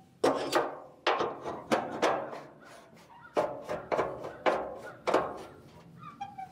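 Metal clanks and knocks on the steel body of a Caterpillar D4D dozer around its fuel tank cap. There are about ten sharp knocks, each ringing briefly, in an irregular run through the first five seconds, and then they die away.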